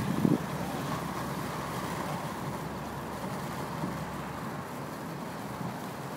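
Steady rumbling noise of a train going by, easing a little about four seconds in.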